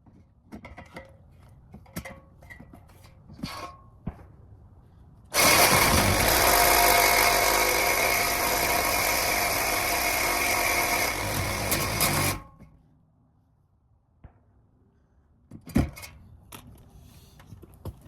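Reciprocating saw (Sawzall) running for about seven seconds while cutting at a car's exhaust pipe connections, starting and stopping abruptly. Light clicks and knocks of handled tools come before it, and a single sharp knock follows.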